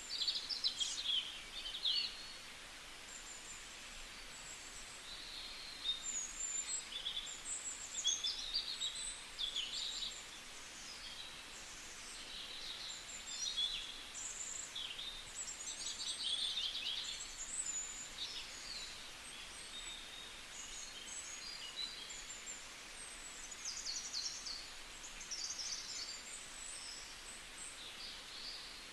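Small birds chirping: many short high calls and quick trills overlapping, over a faint steady hiss.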